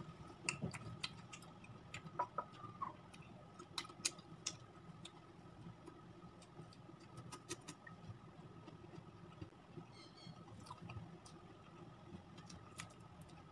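Close-miked eating sounds: chewing and lip smacking with scattered sharp clicks as a woman eats by hand, over a faint steady hum.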